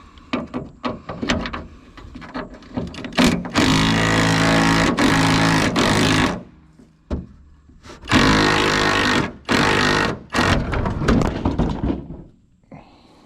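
A power tool runs in several bursts with a steady buzzing rattle, the longest about two and a half seconds. Clicks and clanks of metal tools come in between.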